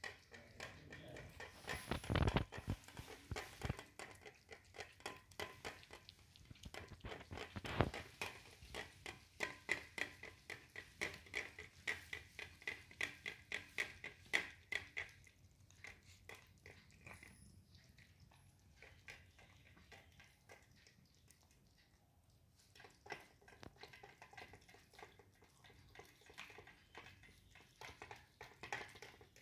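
Two kittens eating soft food from a steel plate: quick wet smacking and lapping clicks, several a second, with two louder knocks, about two and eight seconds in. The clicks thin out for a while after the middle.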